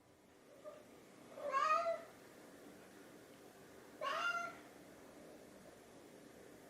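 Domestic cat meowing twice, each meow about half a second long and a couple of seconds apart: a hungry cat asking for food.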